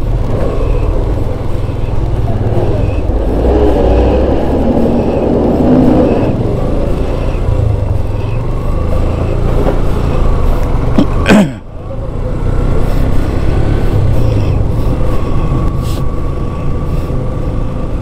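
Motorcycle running on the road, heard from the bike itself: engine and riding noise under a heavy, steady low rumble. There is a brief dip in level about two-thirds of the way in.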